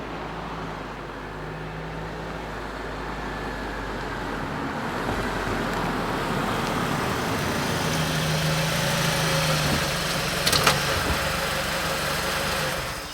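A car drives closer, its engine and tyre noise growing louder over about ten seconds, with a short sharp noise about ten and a half seconds in as it comes to a halt. The engine runs on briefly, then shuts off at the very end.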